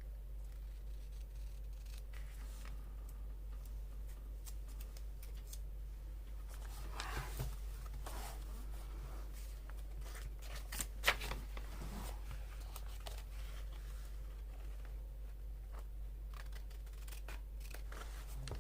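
Scissors cutting paper in faint, scattered snips, with paper rustling and a few sharper clicks, over a steady low hum.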